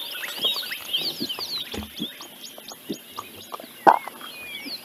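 African wild dogs (painted wolves) twittering: a steady stream of quick, high-pitched chirps, typical of the pack's greeting. One louder short sound about four seconds in.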